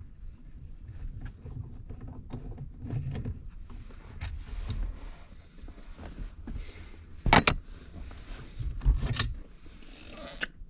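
Handling noise of a Renault Logan steering wheel being worked off its column with a puller: irregular clicks, rubs and knocks, with one sharp clack about seven seconds in and a few knocks soon after.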